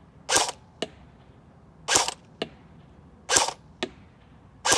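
Battery-powered AK-47 airsoft rifle firing single shots, four about a second and a half apart. Each shot is followed about half a second later by a short, sharp tick of the BB hitting the target.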